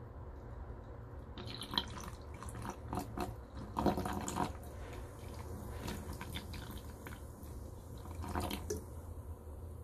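Sparkling water poured in a thin stream into a glass over ice cubes and kiwi slices, starting about a second in: a splashing trickle with irregular crackles and clinks from the ice, loudest a few seconds in.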